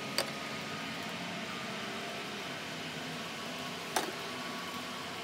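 Steady background hum with two short sharp clicks, one just after the start and one about four seconds in: a small plastic clamp part knocking against a plastic cap as it is handled and lifted out.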